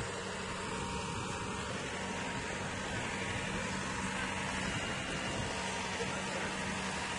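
Farm tractor engine running steadily, a constant low hum over a broad rushing noise.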